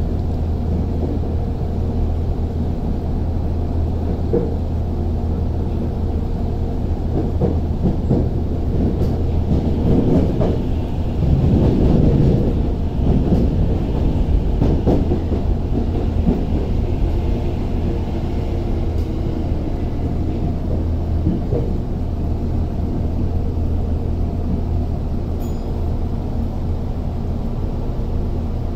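Interior running sound of a Tokyo Metro 05 series train at speed: a steady low rumble and hum from the wheels and motors. It swells for a few seconds about ten to sixteen seconds in, while another train is close alongside.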